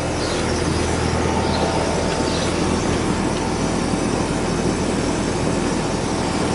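Carrier outdoor air-conditioner condenser unit running: a steady hum from the compressor under the even rush of the condenser fan.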